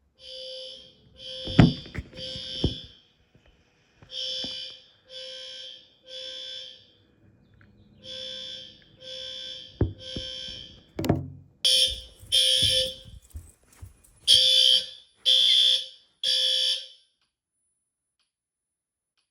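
Fire alarm sounding a shrill pulsed tone in groups of three pulses with a pause between groups, the temporal-three evacuation pattern. It gets louder about 12 seconds in and stops about 17 seconds in. A couple of sharp knocks come about 1.5 seconds and 11 seconds in.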